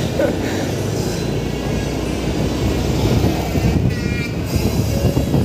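Steady rumble of wind on the microphone mixed with the running engine and road noise of a Honda Activa 125 scooter, a single-cylinder four-stroke, being ridden at low speed.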